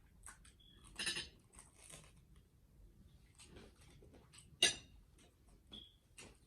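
Close-up eating sounds: scattered wet mouth clicks and chewing, with a few light clinks of cutlery on a plate. The sharpest click comes a little under five seconds in.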